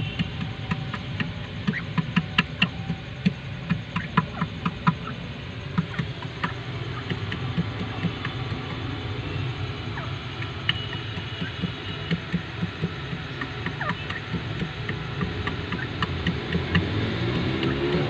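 Grey francolins pecking at feed pellets in a bowl: sharp little taps, a quick run of them in the first few seconds and scattered ones later, over a steady low rumble.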